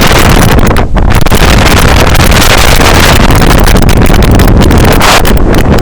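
Heavy wind buffeting the microphone on the roof of a moving bus, a loud, rough rush with a deep rumble that flutters and briefly drops out about a second in.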